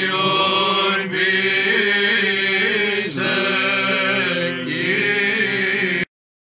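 Men's voices singing Greek Orthodox Byzantine chant, with a low note held steady beneath the moving melody from about halfway in. It cuts off abruptly near the end.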